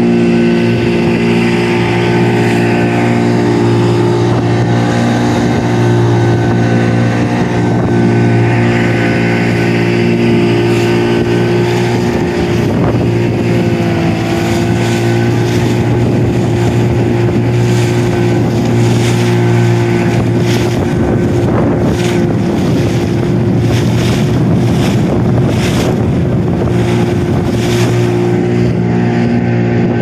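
Outboard motor of a small wooden fishing boat running steadily under way through rough sea, its note dipping briefly about twelve seconds in. Over the second half, repeated knocks and rushes of noise from wind and chop break over the motor sound.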